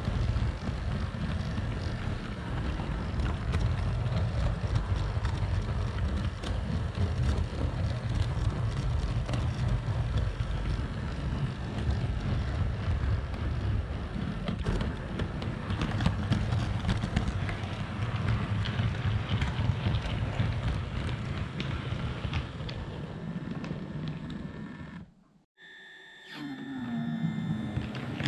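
OO gauge model train running along the track, heard close up from a camera riding on the train: a steady rumble of wheels and motor with fine clicking over the rails. About 25 seconds in the sound drops out sharply, then a steady high tone is heard for about two seconds before the running noise returns.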